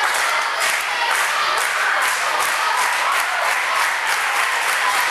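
Live audience applauding, a dense, steady patter of many hands clapping.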